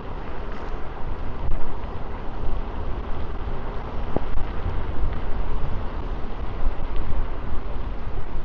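Wind buffeting a shirt-clipped microphone on a moving electric scooter, a constant rumbling rush with road noise underneath, and one brief click about four seconds in.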